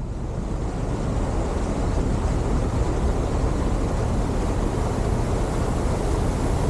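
Shallow creek water rushing over rocks close to the microphone, over the steady low running of a Toyota Tacoma pickup's engine as the truck drives slowly through the water.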